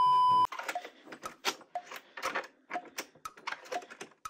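A steady beep tone for about the first half second, cut off suddenly, followed by a run of quick, irregular clicks and ticks with short pitched blips, like typing.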